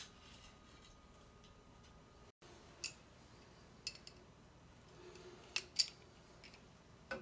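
Faint, scattered metallic clicks and taps of hand tools and faucet parts being handled, about five sharp ticks over several seconds.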